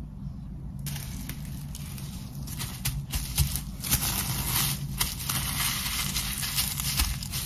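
Plastic cling film crinkling and rustling as it is folded and pressed tightly around a raw steak by gloved hands, starting about a second in and growing louder halfway through, with many small crackles, over a low steady hum.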